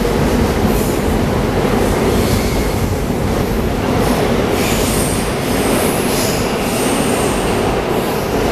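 Seoul Subway Line 1 electric train pulling out of an underground station: a steady rumble of wheels on the track, with high-pitched wheel squeal from about four and a half seconds in until near the end.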